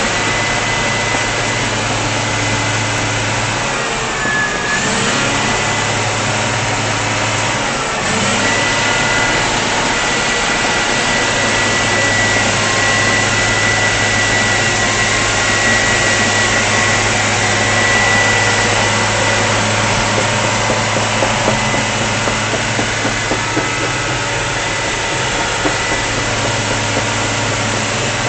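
Komatsu tracked machine's diesel engine running, heard from the cab, with a steady high whine over the low engine hum. The engine sags briefly about four seconds in and comes back up around eight seconds.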